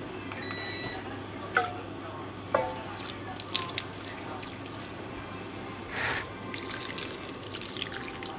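Brown sauce poured from above into a wide pan, splashing and trickling over the food from about six seconds in, after a few light knocks as ingredients are set in the pan. A low steady hum runs underneath.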